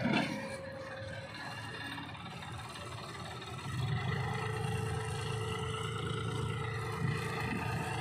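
John Deere tractor's diesel engine running steadily as it pulls a trailer loaded with earth, getting louder about four seconds in.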